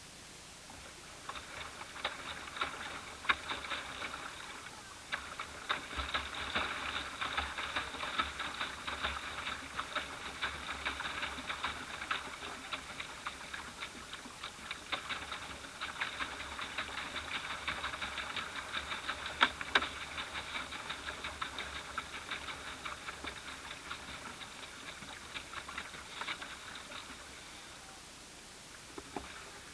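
Small waves lapping against the hull of a small boat: a dense, irregular patter of tiny splashes and ticks that starts about a second in and dies down near the end.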